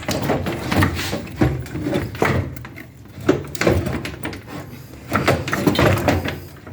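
Irregular clunks, knocks and scraping of a car radiator being worked up out of the engine bay, catching on its mounting bracket as it is pulled.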